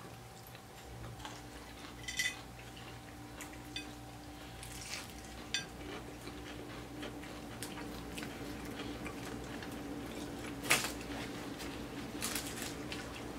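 Eating sounds of KFC extra crispy fried chicken pulled apart and eaten by hand: scattered crunches, mouth smacks and crinkles of the paper wrappers, the sharpest a couple of seconds before the end, over a faint steady hum.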